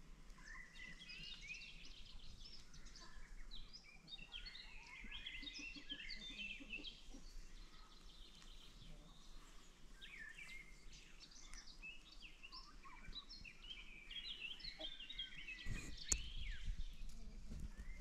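Several birds singing and calling together in woodland: many overlapping short chirps and whistled phrases. Near the end a sharp click, followed by a low rumble.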